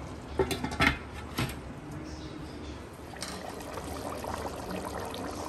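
A few sharp knocks and clinks of cookware being handled on a gas stove in the first second and a half, then a faint steady background while a glass lid is lifted off a pot of curry.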